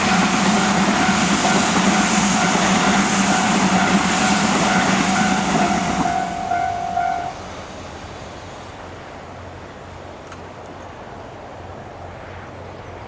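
Japanese railway level crossing's electronic warning bell ringing in its standard tone over the rumble of a passing Tobu 100-series Spacia train. About seven seconds in, the train noise fades and the bell stops, leaving a quieter steady background.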